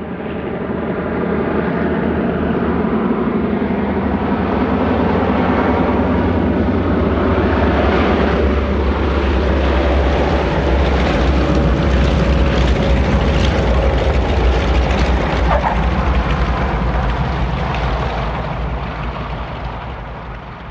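Vintage propeller airplane coming in to land: a deep engine rumble and drone that swells to its loudest in the middle and then fades away, the drone dropping slightly in pitch as it passes.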